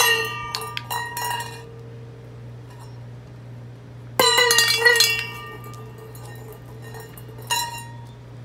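A stainless steel dog bowl clattering and ringing on stone paving after being dropped, with a second drop about four seconds in and a shorter clank near the end.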